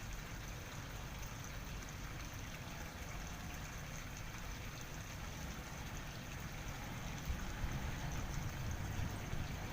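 River water flowing steadily, a continuous rushing with a low rumble underneath.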